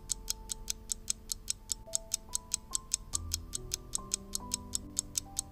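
Countdown-timer ticking sound effect, about four ticks a second, over soft background music of held notes that change every second or so.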